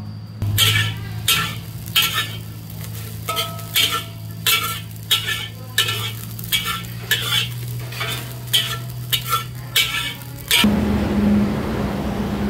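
Metal spatula scraping and striking a wok while stir-frying rice, in sharp strokes about one and a half times a second over a low steady hum. Near the end the strokes stop and a steady hiss with a low hum takes over.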